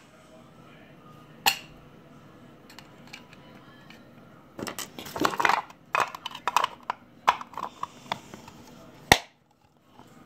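Hard plastic toy capsule pieces clicking and scraping as they are handled and pressed together: a sharp click about a second and a half in, a run of clicks and rubbing through the middle, and one loud snap near the end.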